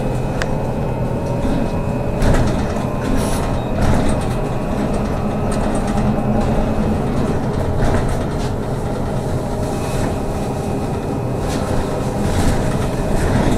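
Trolleybus in motion, heard from inside: a steady low hum and road noise with a faint electric motor whine, and scattered clicks and rattles.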